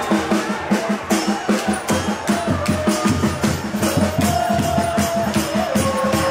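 Supporters' drums beating a steady rhythm of about four beats a second, with a held, wavering melodic line over them, as in a stadium chant.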